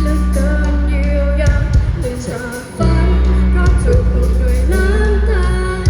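A live band playing a song with a sung vocal line over heavy sustained bass notes. The music thins out briefly about two seconds in, then comes back in full.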